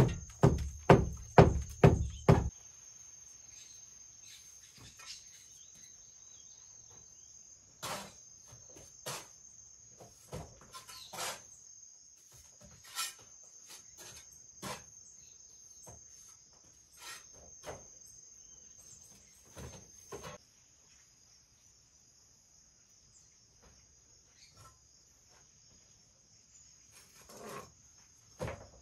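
A quick run of loud knocks, about three a second, from work on the brick wall stops about two and a half seconds in. After that a steady high-pitched insect trill, like crickets, runs on, broken by scattered single knocks and taps from the bricklaying.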